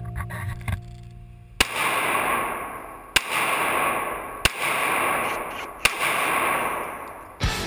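CZ P-07 pistol fired five times, one shot about every one and a half seconds, each shot leaving a long echoing tail.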